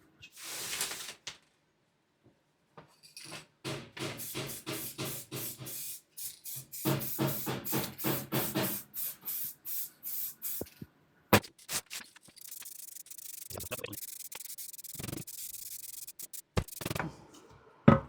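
Runs of quick rubbing strokes, some with a faint squeak, then a few sharp knocks and a stretch of steady hiss.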